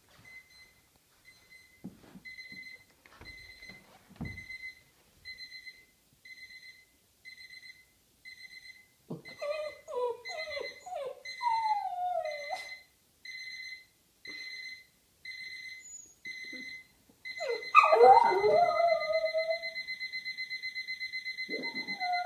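Electronic alarm beeping in short, high, evenly spaced beeps that turn into a faster continuous beeping about two-thirds of the way in. A young boxer dog howls along with it: whimpers and yips build into a falling howl, then a louder howl, and another howl starts near the end.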